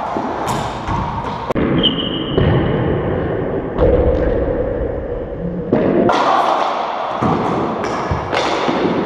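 Racquetball rally: the hollow ball struck by racquets and smacking off the walls and floor of the enclosed court, several sharp hits ringing with the court's echo. A brief high squeak about two seconds in.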